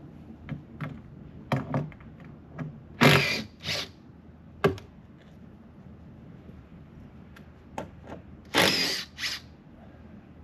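A handheld power tool, drill-like, run in short bursts of under a second each: two close together about three seconds in, a brief one near five seconds, and a longer one near nine seconds. Sharp clicks and knocks of handling come between the bursts.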